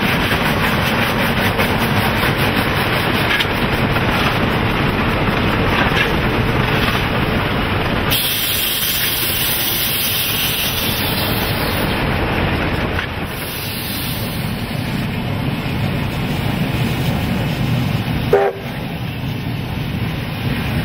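Steam locomotive running, heard from inside its cab: a steady loud rumble and clatter of the engine and wheels, with a spell of strong steam hissing from about 8 to 12 seconds in and a short loud sound near the end.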